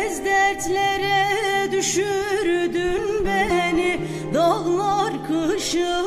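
A woman singing a long, ornamented, wavering Turkish folk-song line with acoustic guitars accompanying.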